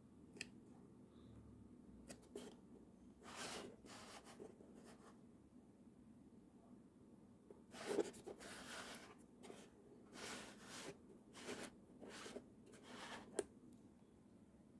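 Faint rubbing and scraping sounds of a cardboard product box being handled, in short bursts with a few sharp clicks, the loudest about eight seconds in.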